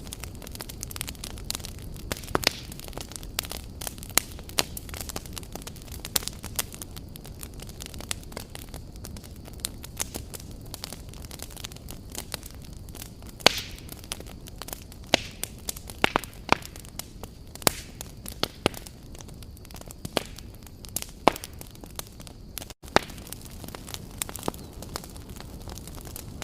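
Firewood campfire crackling: irregular sharp pops and snaps over a steady low rumble of burning logs, with a split-second break in the sound about three-quarters of the way through.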